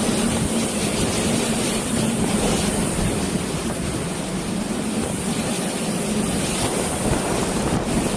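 Typhoon wind and rain: a dense, steady rush of storm noise with wind buffeting the microphone, over a faint steady low hum.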